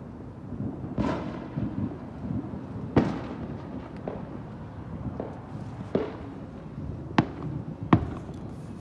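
Fireworks going off: a run of irregularly spaced booms and bangs over a constant low rumble, with the sharpest two cracks near the end.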